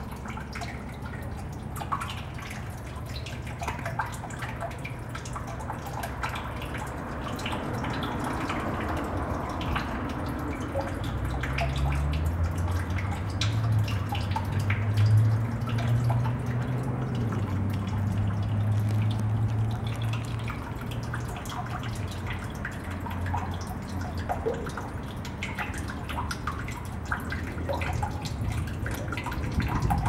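Water dripping inside a storm drain below a cast iron grate: many irregular small drops. A low hum swells in the middle and fades away.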